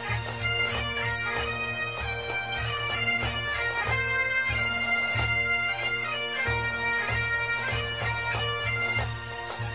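Bagpipes playing a tune: the chanter's melody moves over steady, unbroken drones.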